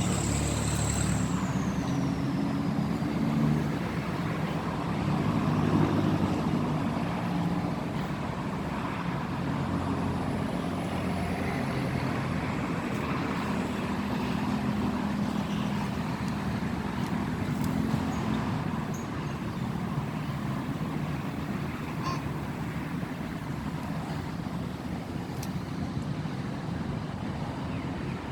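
Road traffic: vehicle engines running and passing steadily, swelling and fading. A high whine falls away in the first few seconds.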